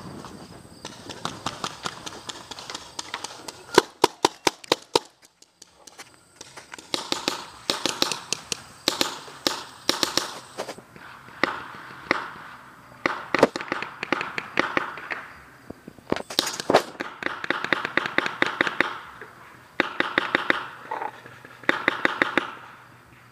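Paintball markers firing rapid strings of sharp pops, with the loudest burst about four seconds in and several more strings later on.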